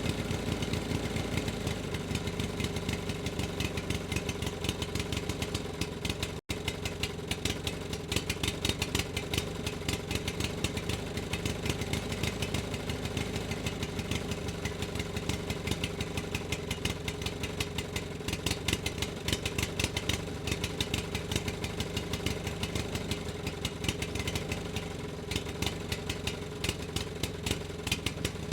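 A motor engine idling steadily with a fast, even firing beat, briefly cutting out about six seconds in.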